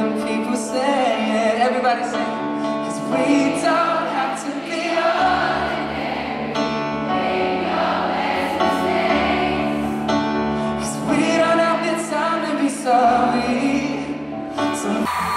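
Live amplified pop music heard from arena seating: a male singer with sustained instrumental backing, with many voices in the crowd singing along.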